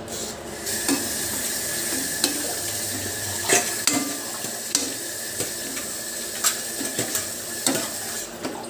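A metal ladle stirring pork hocks in adobo sauce in a metal wok, clinking and scraping against the pan at irregular moments, over a steady sizzle from the hot pan.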